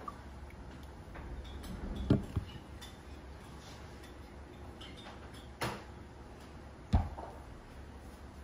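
Glass coffee server and ceramic cup being set down on a counter: two knocks close together about two seconds in, another about five and a half seconds in, and a loud one about seven seconds in, over a low steady hum.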